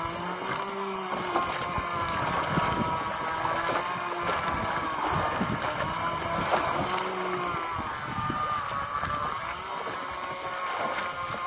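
A small boat engine running steadily, its pitch wavering up and down, with wind and water noise.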